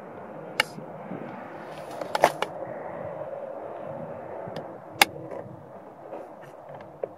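A scattering of sharp plastic clicks and taps from the 2002 Chevy Tahoe's door courtesy-light housing and its wire plug being handled and fitted back into the door panel: one about half a second in, a quick cluster around two seconds in, the loudest about five seconds in, over a steady low hiss.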